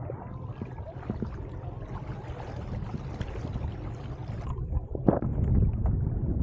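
Wind buffeting the microphone over water splashing and swishing along a kayak's hull as a small paddle dips beside it, with a brief thump about five seconds in. The wind rumble grows louder near the end.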